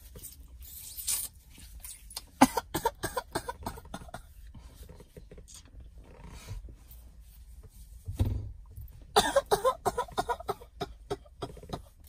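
A man's quiet throat and mouth noises, a cough-like sound among them, with scattered clicks and rustling.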